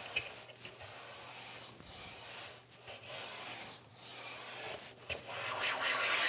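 Caliastro No. 5 bench plane pushed in several strokes of about a second each along the edge of a maple board, a hissing rub of the plane on the wood. The blade is being advanced a little at a time, and the last stroke, near the end, is the loudest.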